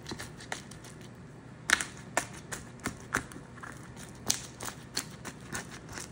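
White plastic spoon working through baked cheesy meatball pasta in a disposable aluminum foil pan: irregular sharp clicks of the spoon and the foil pan, the loudest about two seconds in.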